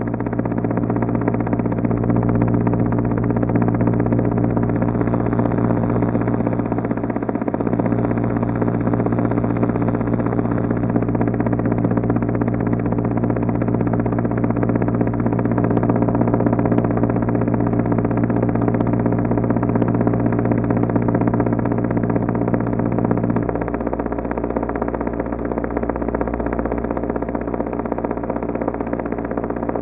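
Synthesized helicopter sound made in NI Absynth: a looped chopper-blade waveform layered with an engine-hum oscillator, run through a comb filter and playing steadily. About three-quarters of the way through, the deepest part of the hum weakens.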